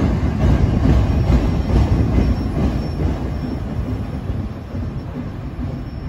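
Freight train of autorack cars rolling past, its wheels running on the rails with a heavy low rumble that fades as the last car goes by and draws away. A faint, thin, high wheel squeal runs under it from about two seconds in.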